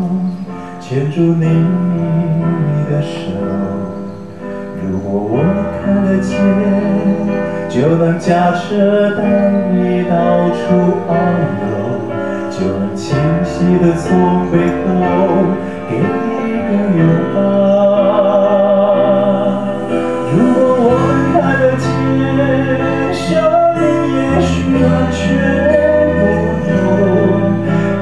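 A man singing into a handheld microphone over instrumental accompaniment, with a long note sung with vibrato about two-thirds of the way through.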